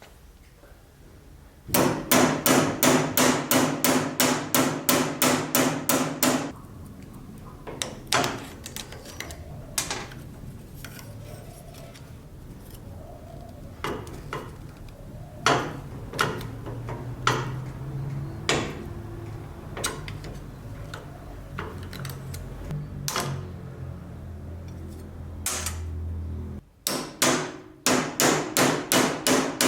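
Hammer blows in quick runs of about five a second with a ringing note, near the start and again near the end, with slower single taps in between.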